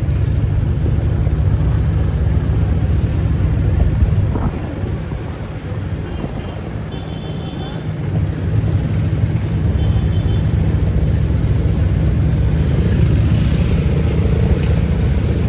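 A vehicle engine running steadily as a low drone, with wind noise over it; it dips a little in the middle and comes back up from about eight seconds in.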